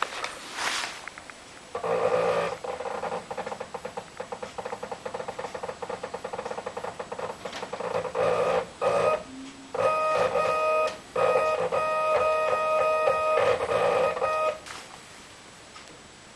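Stepper motor driving a lathe carriage along its leadscrew: a steady whining tone with rapid ticking, starting about two seconds in, pausing briefly twice, and stopping near the end.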